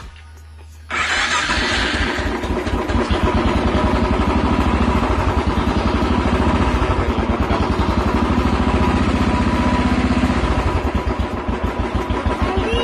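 Royal Enfield Classic 350's single-cylinder engine started on the electric self-starter: a brief crank about a second in, and it catches at once and settles into a steady, evenly thumping idle. It starts on the first press with a newly fitted ignition switch.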